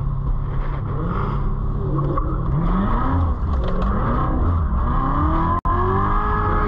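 Chevrolet Corvette C7 Z06's supercharged 6.2-litre V8, heard from inside the cabin, revving up and down repeatedly while driving. The sound breaks off sharply for an instant about five and a half seconds in.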